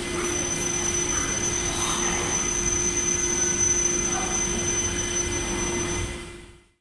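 Beijing Subway DKZ13 train with a Hitachi IGBT-VVVF traction drive braking to a stop at the platform. Its inverter and traction motors give a steady high-pitched whine and a lower steady hum over the running noise. The sound fades out near the end.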